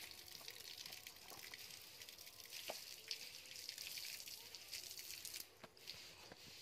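Faint steady hiss with a few soft clicks and taps from a dressed chicken being cut apart on a floor-mounted bonti blade.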